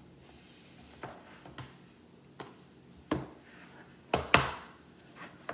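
A paperboard Apple Watch box being handled and knocked against a wooden tabletop while being opened: a series of light knocks and thuds, about six in all, the loudest two close together about four seconds in.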